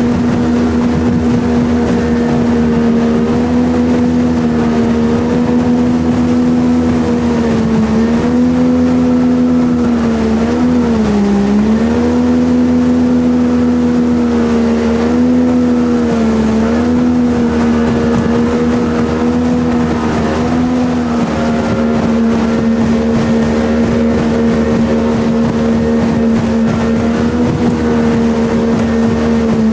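Jet boat engine running steadily under way. Its pitch dips briefly a few times as the throttle eases, most deeply about eleven seconds in, then holds steady through the later part.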